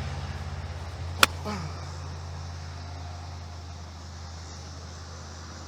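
A single sharp crack of a golf club striking the ball about a second in, over a steady low hum.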